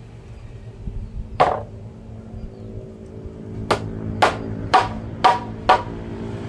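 Hammer knocks on wood while a door panel is fitted: one knock, then about two seconds later a run of five evenly spaced knocks, roughly two a second. A steady low hum runs underneath.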